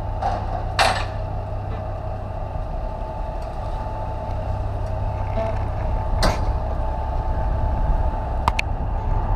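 Car-carrier truck's diesel engine idling steadily, with a few sharp metallic clanks, the loudest about a second in and another around six seconds in.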